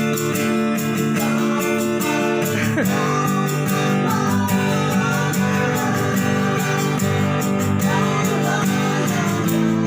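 Music with a strummed guitar and faint singing, at a steady beat.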